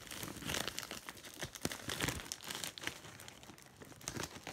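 A bag crinkling and rustling in irregular sharp crackles as items are put back into it.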